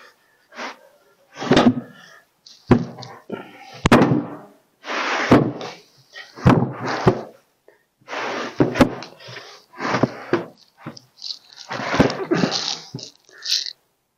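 Freshly sawn pine boards being handled on a bandsaw mill's bed: repeated scraping and sliding of wood on wood, with several sharp knocks as boards are shifted and stood on edge.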